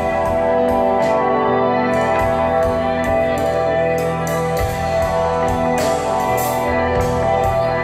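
Instrumental rock trio playing live: electric guitar holding sustained, ringing chords over bass and drum kit, with cymbal hits at a steady beat. The deepest bass drops back and returns about halfway through.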